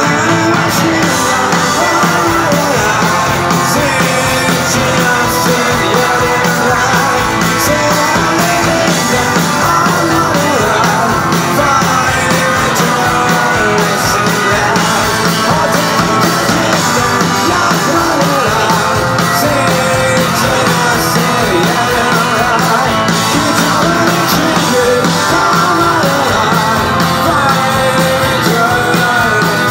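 Rock band playing live: electric guitars, bass and drums, with a man singing lead vocals into the microphone.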